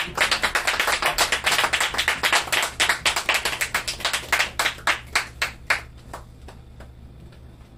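A small audience clapping at the end of a live performance: many separate claps, thinning out and stopping about six seconds in.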